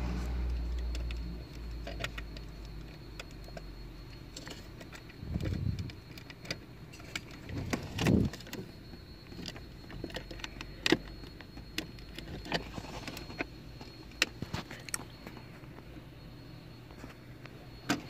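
Scattered small clicks and knocks of plastic trim and a wiring connector being handled in a car's centre console, with two louder rustling scrapes about five and eight seconds in and a low rumble at the start.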